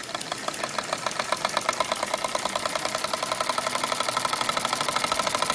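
Old model stationary steam engine starting up and running with a fast, even beat of strokes that speeds up and gets louder as it takes off under steam.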